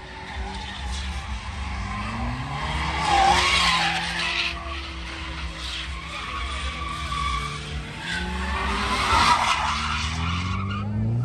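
A car doing a burnout at a street takeover: the engine revs up and down while the tyres screech. The screech swells loudest about three seconds in and again near the end.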